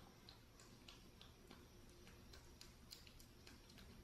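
Very faint, irregular small clicks of a baby monkey nibbling and chewing a crisp wafer cake.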